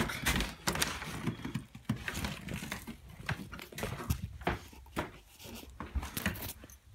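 Footsteps and rustling handling noise of someone walking with a camera, with irregular knocks and clicks scattered throughout.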